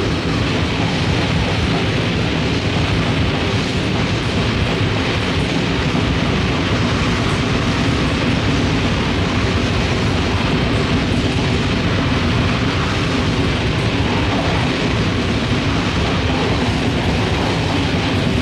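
Grindcore band playing at full intensity: heavily distorted guitars and fast drums merge into a dense, unbroken wall of noise.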